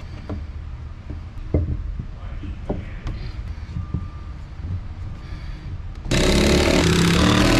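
Light knocks and handling sounds of hands working on a plywood hull. About six seconds in, a loud, steady motor-driven power tool starts running.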